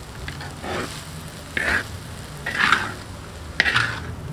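Spatula scraping and turning a stir-fry of tiwul and noodles in a wok, about one stroke a second, over a low sizzle of frying.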